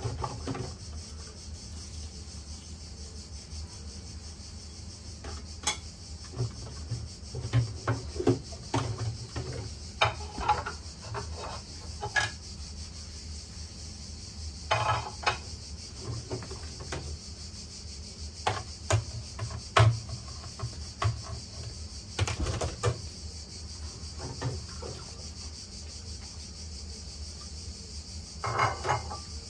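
Dishes and cutlery clinking, knocking and scraping on and off as someone starts washing up by hand. A steady high hiss runs underneath throughout.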